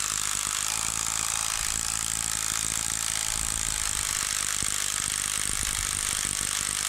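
DeWalt cordless driver running steadily at one speed, spinning the scroll of a three-jaw lathe chuck through its key socket. The freshly cleaned and oiled scroll turns freely.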